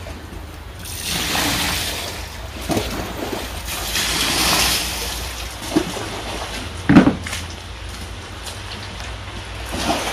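Water splashing and sloshing as a large hooked fish is handled at the pond's edge, in two surges of splashing with a few dull thumps, the loudest about seven seconds in.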